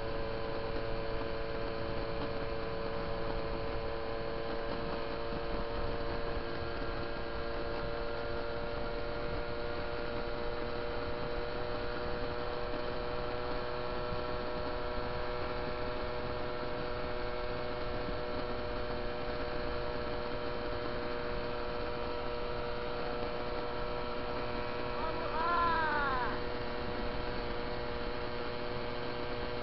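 Moped's small two-stroke engine running at a steady cruising speed, a constant drone that holds its pitch. About 26 s in, a brief higher tone rises and falls once over the drone.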